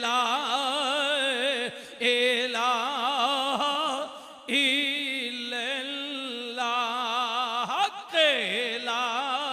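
A man's voice singing long, wavering held notes without words, in the drawn-out style of chanted Punjabi devotional verse. The phrases break off briefly three times, and near the end one falls in a swoop.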